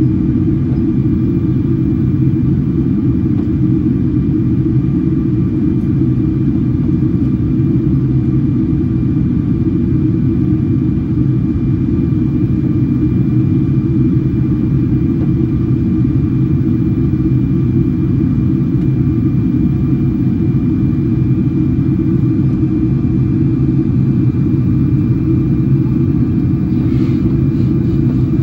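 Steady cabin noise inside a Boeing 777-300 airliner descending on approach: a loud, even rumble of engines and airflow, with a faint steady high tone above it.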